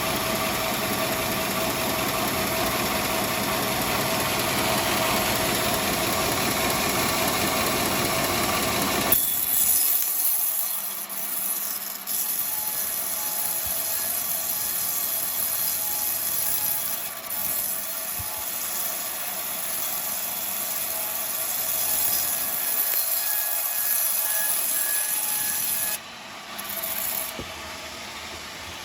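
Sawmill bandsaw running and sawing through coconut wood. About nine seconds in the sound changes abruptly to a thinner, high hiss, and it drops quieter near the end.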